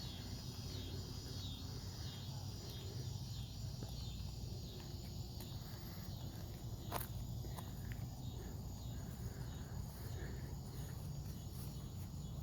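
Faint steady chirping of insects, such as crickets, over a low background rumble, with a single sharp click about seven seconds in.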